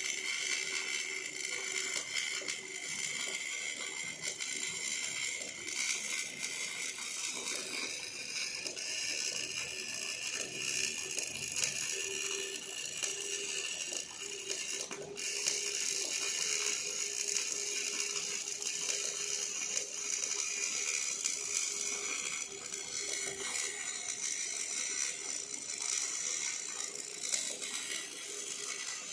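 OTC welding robot at work: a continuous rattling, clicking mechanical sound with steady high-pitched tones over it.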